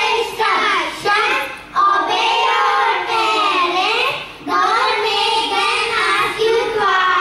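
A group of young children singing a song together into microphones, in phrases with brief breaks for breath.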